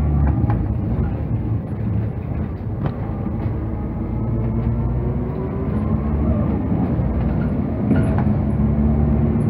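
Cabin sound of a Heuliez GX217 CNG city bus on the move: the natural-gas engine and drivetrain running with a steady low drone.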